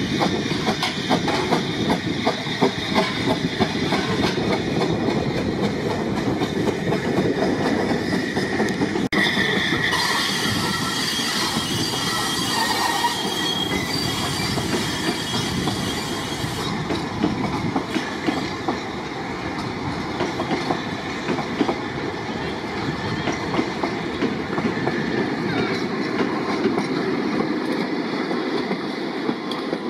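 Narrow-gauge steam locomotive pulling out with its train: a rhythmic beat at first, then a loud hiss of steam with a high squeal about nine seconds in. The carriages then roll past with a steady rumble and wheel clatter.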